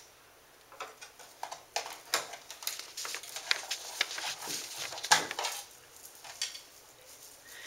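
Irregular clicks, knocks and rattles of hard parts being handled as the brush roll is worked out of the upturned vacuum's base, with the loudest knock about five seconds in.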